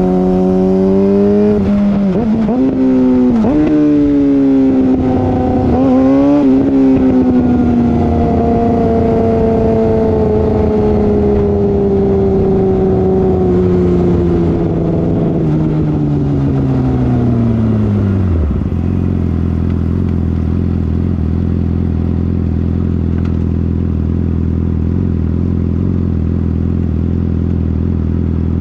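Exhaust of a 2013 Yamaha R6's 600cc inline-four, through an M4 Street Slayer exhaust with the muffler box deleted, and very loud. Its revs jump up and down several times in the first few seconds, then fall slowly for about ten seconds before dropping suddenly to a low, steady idle that runs on to the end.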